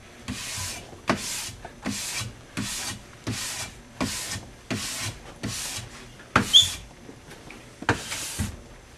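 Brass brush scrubbing the base of an alpine race ski in repeated tip-to-tail strokes, a little over one a second, each a rasping hiss that starts with a light tick. A short squeak comes about six and a half seconds in. The brushing clears leftover wax out of the base's structure grooves after scraping.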